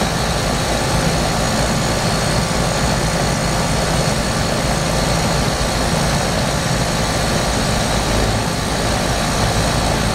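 2006 Trane portable HVAC unit running in cooling mode, its condenser fan and refrigerant compressor making a steady, loud whoosh over a low hum.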